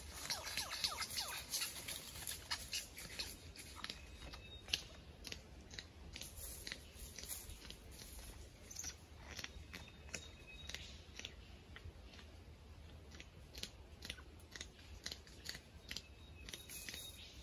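Superb lyrebird scratching and raking through dry leaf litter: irregular crunching and crackling of dead leaves and twigs, busiest in the first couple of seconds.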